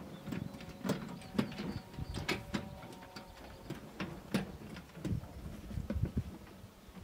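Wooden boards knocking and clattering in a loaded wheelbarrow as it is pushed over bumpy grass: a run of irregular sharp knocks, several a second.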